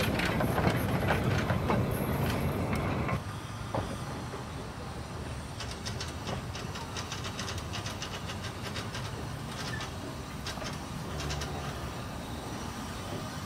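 Narrow-gauge saddle-tank steam locomotive and its coaches running slowly: wheels clicking and rattling over the track with a soft hiss of steam. The sound drops suddenly about three seconds in, then goes on quieter, with a run of evenly spaced clicks in the middle.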